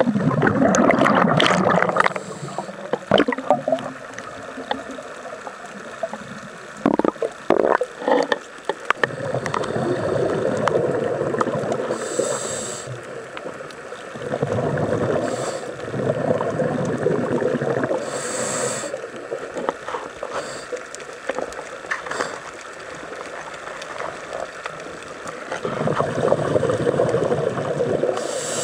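Scuba diver breathing through a regulator underwater: long bubbling exhalations every few seconds, with short hissing inhalations between some of them. A few sharp knocks come in the first eight seconds.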